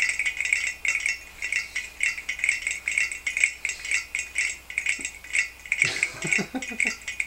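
Small metal parts shaken in the hand like a maraca: a rapid, even metallic rattle of about four to five shakes a second with a bright, jingling ring.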